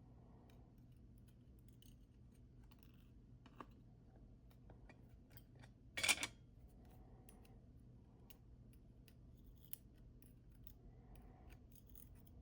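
Small metallic clicks and ticks of tweezers picking the pins and springs out of a gutted Yardeni 6-pin dimple lock, with one short, louder rattle about six seconds in. A faint steady low hum sits underneath.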